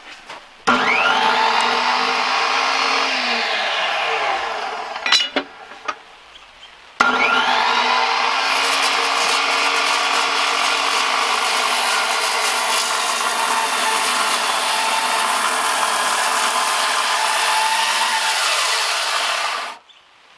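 Skilsaw 10-1/4-inch worm drive circular saw with a 15-amp motor starting with a rising whine, running for a few seconds and winding down, then a click. It starts again about seven seconds in and cuts steadily through a large timber for about twelve seconds before switching off near the end.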